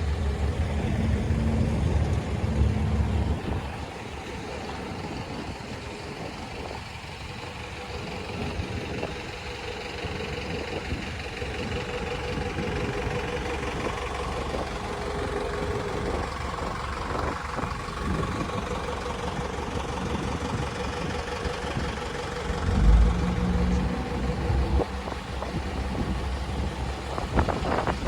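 Motor vehicle engines: a loud low engine sound fades after the first few seconds, then comes steady quieter traffic-like noise, and a short loud low surge follows about four-fifths of the way through.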